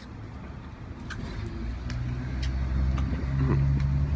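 A motor vehicle engine running steadily with a low hum, growing louder about a second and a half in and then holding. Scattered small clicks of someone eating a mango sit on top.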